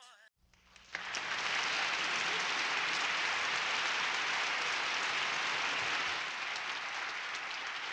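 Audience applause, swelling up within the first second and then holding steady.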